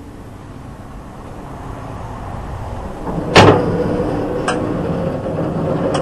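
Case 230 square baler's needle and knotter mechanism being cycled: a loud metal clank about halfway through, a lighter click a second later, then a steady mechanical rattle with a faint hum.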